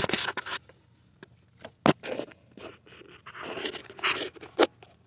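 Hands and camera handling among engine parts: irregular scraping and rubbing with a few short clicks.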